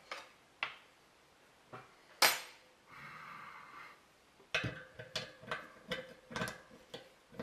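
Metal clicks and knocks of a hand-held impact driver being seated in and worked on a brake-disc bolt of a motorcycle wheel hub, with one sharp metallic knock about two seconds in and a run of quick clicks in the second half. The bolt is being loosened without a hammer blow, after being heated.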